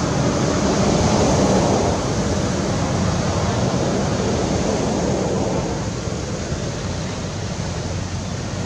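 Steady rushing noise with no distinct sounds in it, a little louder in the first two seconds.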